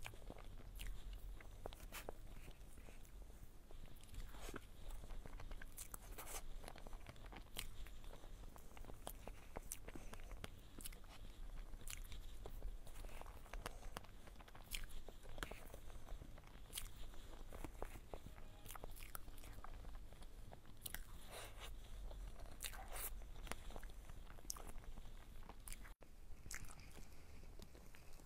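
Close-miked eating of a soft whipped-cream cake: wet chewing and lip smacks in an irregular run of sharp clicks, with a metal spoon now and then against the paper tray. The sound cuts out for an instant near the end.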